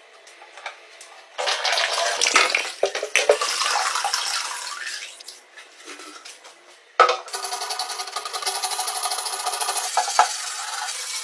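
Water splashing and streaming off a Honda CG125 fuel tank as it is lifted out of a rust-removal bath. From about seven seconds in, a scouring pad scrubs the wet steel tank in fast, even strokes.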